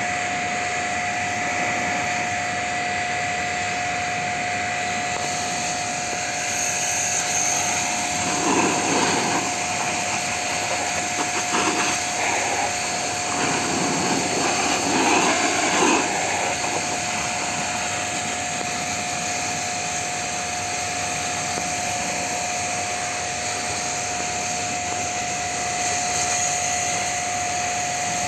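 Small electric pressure washer running steadily with a constant whine while its water jet hisses against an AC condenser coil. From about a third of the way in, for several seconds, the spray gets louder and rougher as the jet plays over the unit's metal base pan.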